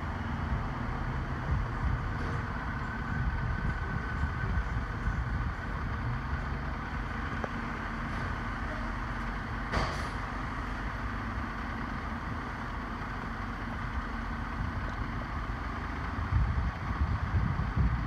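Fire engine's diesel engine idling in the station bay, a steady low rumble, with one sharp click about ten seconds in. The rumble grows louder near the end.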